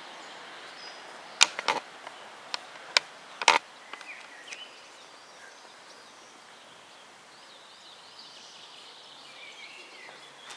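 Quiet outdoor background noise broken by five sharp clicks between about a second and a half and three and a half seconds in, with faint high chirps later on.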